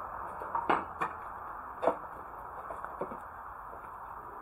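A few sharp knocks or taps at irregular intervals over a steady hiss: three in the first two seconds and a fainter one about three seconds in.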